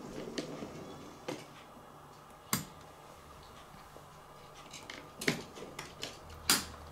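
A handful of sharp, irregular clicks and light taps over faint room noise, the loudest two near the end.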